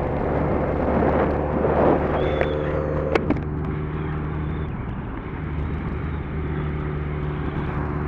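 Kawasaki GPZ1100's inline-four engine running at a steady cruising speed, with wind rushing past; the engine note eases briefly about five seconds in, then settles again.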